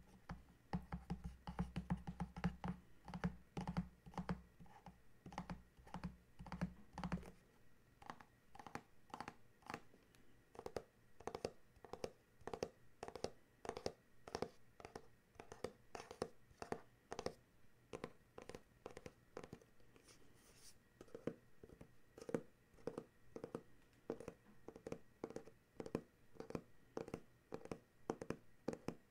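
Fingertips and nails tapping on a black cardboard box, crisp taps at about two or three a second. For the first seven seconds or so each tap carries a deeper knock.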